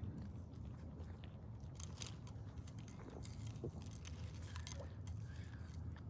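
Goats close to the microphone making a run of short crunching, crackling clicks, over a steady low rumble.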